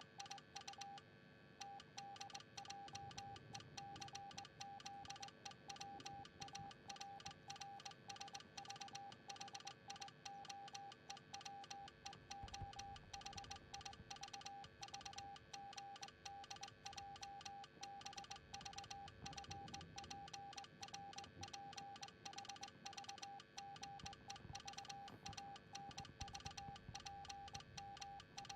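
Morse code sent as a single steady beep tone keyed on and off in a continuous run of short and long elements, dots and dashes, with a faint click as each element starts and stops.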